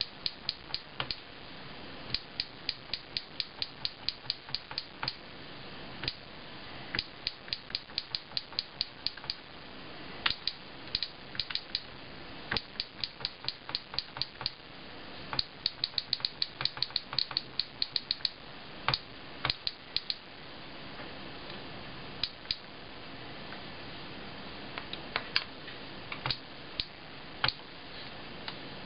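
Keystrokes on the Sharp Mobilion HC-4500 handheld PC's small keyboard: runs of quick sharp clicks, several a second, broken by short pauses, thinning to a few scattered clicks in the last third.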